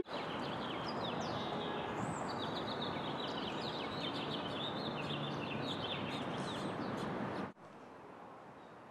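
Birds chirping, many short quick calls over a steady outdoor background noise. It cuts off suddenly about seven and a half seconds in, leaving a faint hiss.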